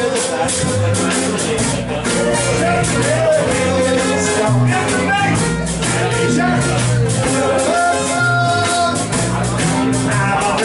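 Live band playing a song: a man singing over a strummed acoustic guitar, electric guitar and drum kit, with a steady beat.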